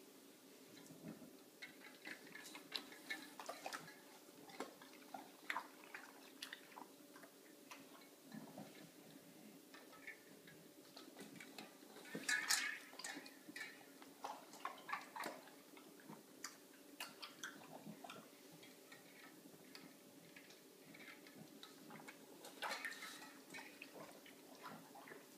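English bulldog going after ice cubes in a stainless steel water bowl: irregular clinks and knocks of ice and muzzle against the metal bowl, with bouts of lapping and splashing water. The busiest bursts come about twelve seconds in and again near the end.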